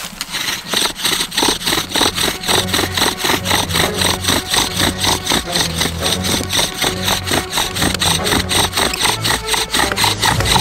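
Bow drill fire-making: a bow strung with paracord is sawed quickly back and forth, spinning a wooden spindle against a hearth board at about four strokes a second. The wood-on-wood friction gives a rhythmic rasp with a humming drone underneath, and it builds in the first second.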